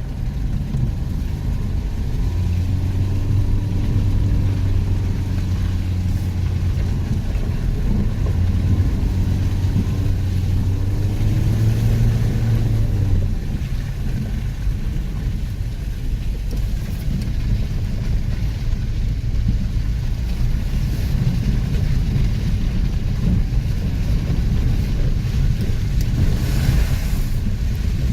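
Vehicle engine running under way over rough ground, with steady rumble and wind noise. Its low engine note holds for about ten seconds, climbs a little, then drops away, and the rumble carries on.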